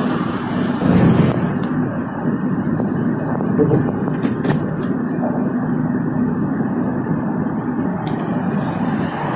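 Steady road and engine noise of a car in motion, heard from inside the cabin, with a faint steady hum. A couple of brief clicks about four and a half seconds in.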